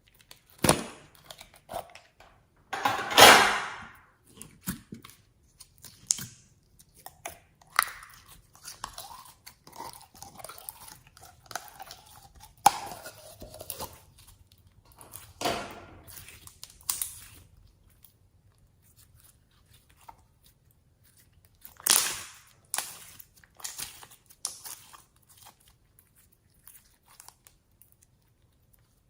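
Slime being squished and worked by hand, in irregular squishes of varying length; the longest and loudest comes about three seconds in, with another strong one about two-thirds through.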